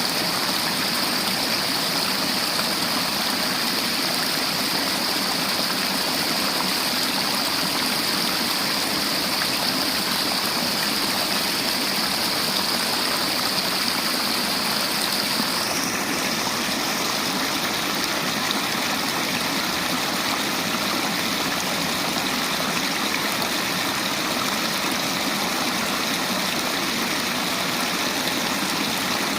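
River water flowing and rushing steadily over rocks, a continuous even hiss; its high tone changes slightly about halfway through.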